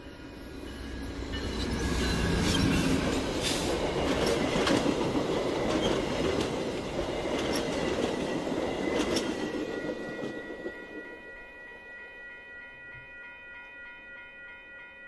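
Via Rail P42DC diesel locomotive and its passenger cars passing at speed, a low engine rumble building as it nears, then wheels clattering over rail joints with a few sharp clicks. A level-crossing bell rings steadily underneath and is left alone after the train has passed, about ten seconds in.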